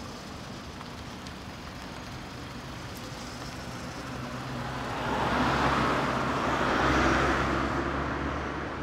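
Street traffic at night: a car engine runs at a low steady idle while road noise from a passing vehicle swells and fades in the second half, loudest around two-thirds of the way through.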